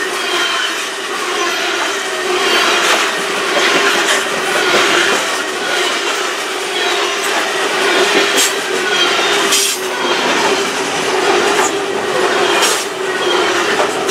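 Coal cars of a freight train rolling past close by: steady wheel-on-rail rumble under a constant held tone. Faint gliding squeals of wheels on the rail and a few sharp clanks come through, louder around the middle and near the end.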